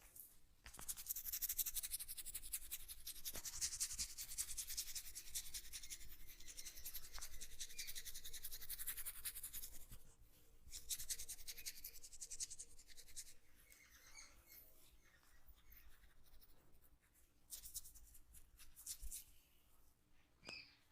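Fingers rubbing and scratching briskly through oiled hair and scalp during a head massage, a fast crackling rustle. It breaks off briefly about ten seconds in, then comes back in shorter, fainter spells.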